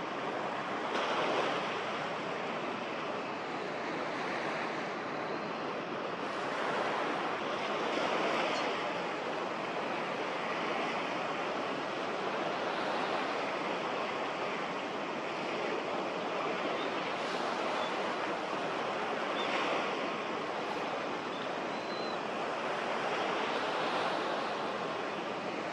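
Harbour water washing and lapping: a steady rushing noise that swells and eases every couple of seconds.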